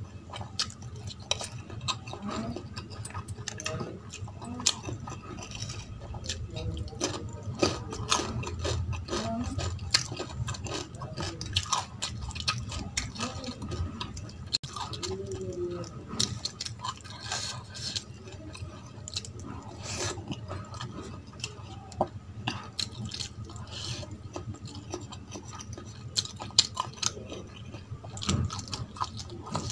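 Close-up eating sounds: wet chewing and lip smacking of rice and curry, with the soft squish of fingers mixing rice and gravy on a steel plate. There are many small sharp clicks, irregularly spaced.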